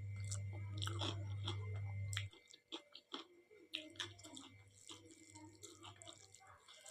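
Close-miked chewing of dal and rice: wet mouth smacks and soft clicks throughout. A low hum under it is loud for the first two seconds, then comes back more faintly.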